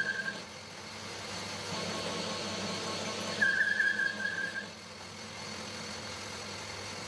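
Lathe running steadily while a single-point tool cuts a half-inch pipe thread into a steel rod under coolant, in light cuts. A high squeal from the cut sounds briefly at the very start and again for about a second just past the middle.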